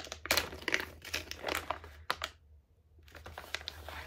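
Red wrapping paper crinkling and rustling in irregular bursts as a small gift is unwrapped by hand, with a short lull about two and a half seconds in.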